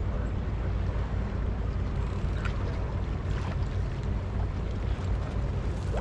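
Steady low rumble of wind buffeting the microphone over open water, with a couple of faint clicks about halfway through.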